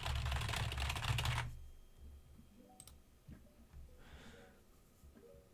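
Rapid typing on a computer keyboard, a quick run of keystrokes lasting about a second and a half, then a few single key clicks: a long string of letters being typed in as test input.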